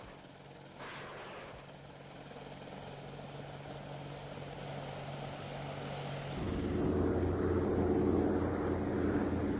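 Mil Mi-28 twin-turboshaft attack helicopter running: rotor and engine noise with a low hum that grows steadily louder, then about six seconds in it turns abruptly louder with a steady low drone and a fast flutter from the rotor.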